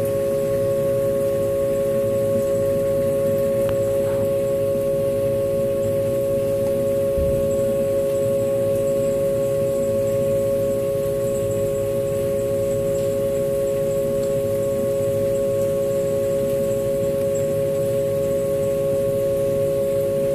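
Haas V1 CNC vertical mill cutting steel with an end mill, running a steady whining tone over a low rumble.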